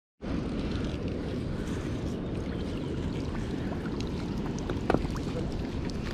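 Wind buffeting the microphone outdoors: a steady low rumble, with a couple of brief knocks about five seconds in.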